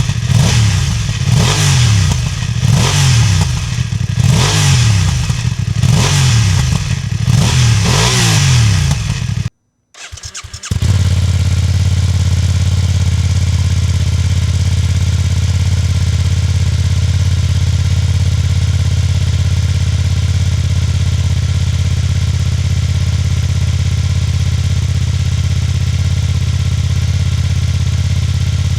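BMW F900R's parallel-twin engine on a cold start, blipped repeatedly, about once a second, each rev rising and falling. After a brief break it settles into a steady idle.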